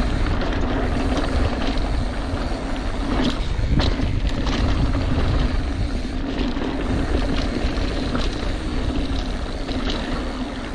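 Mountain bike rolling fast down a rocky dirt trail: wind buffeting the microphone over a steady rumble of tyres on dirt and gravel, with scattered knocks and rattles from the bike over rocks.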